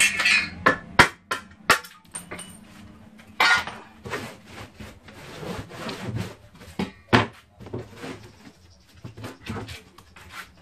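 A wooden board being handled on a wooden table-saw top: scattered sharp knocks and clatters as it is set down and bumped, with a short scrape as it slides, the loudest knocks in the first two seconds and about seven seconds in.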